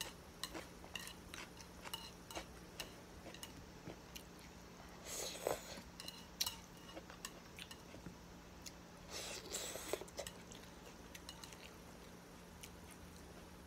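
Chopsticks clicking and scraping against a ceramic plate, with chewing that grows louder twice, about five and nine seconds in.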